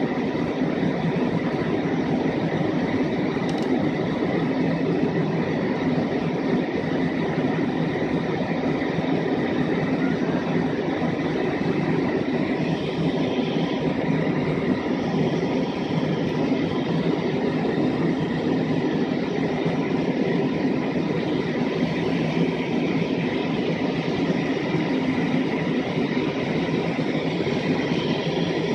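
Jet airliner in flight heard from inside the passenger cabin: a steady, unchanging drone of engines and rushing air, with a faint steady whine above it.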